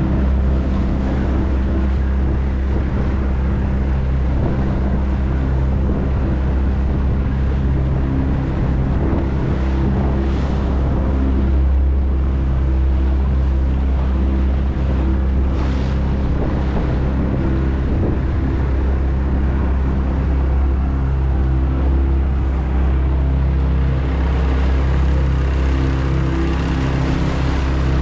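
Outboard motor of a Trophy 1802 boat running at a steady cruising speed, a constant low hum, with water rushing and splashing along the hull and wind on the microphone.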